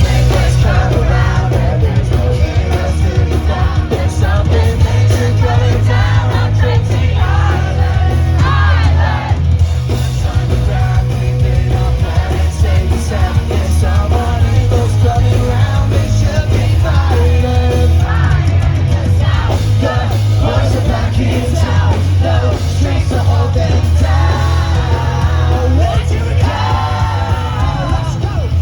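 Pop-punk band playing live with heavy bass and sung vocals, mixed with yelling and singing from the audience.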